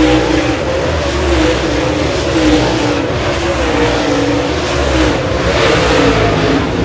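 Dirt late model race cars' V8 engines at full throttle as the field races around the track, their pitch rising and falling, with a louder swell as one car passes close about six seconds in.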